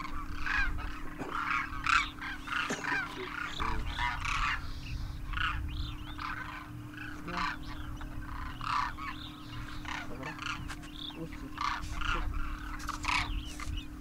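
A large flock of demoiselle cranes calling, with many overlapping calls throughout and a low rumble underneath.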